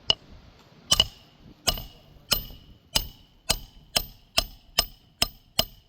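Hammer driving a roofing nail into an asphalt shingle: about a dozen sharp metal strikes, each with a brief ringing tone, coming faster as they go.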